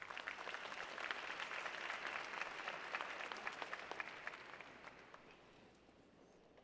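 Audience applauding, many hands clapping at once; the applause is strongest in the first few seconds and dies away about five seconds in.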